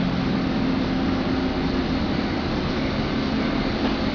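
Steady hum and rumble heard inside a metro train car, with a low steady drone underneath.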